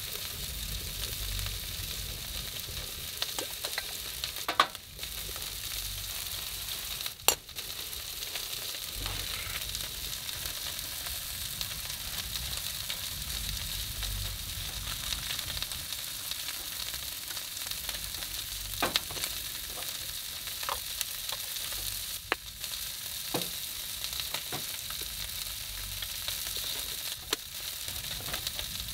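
Steady sizzling hiss from the top of a small wood-burning camp stove, where food wrapped in foil and a kettle are heating, under an uneven low rumble. A few sharp clicks and knocks come from cups and a coffee pot being handled.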